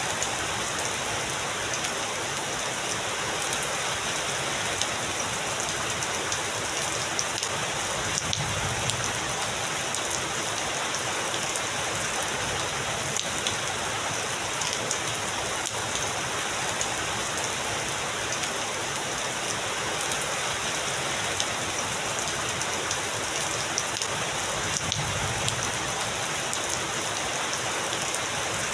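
Steady heavy rain falling, with scattered sharp drop hits. Distant thunder rumbles faintly about eight seconds in and again near the end.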